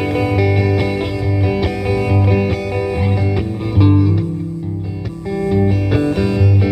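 Live instrumental guitar music: plucked and strummed guitar notes over a strong low bass line, with no singing.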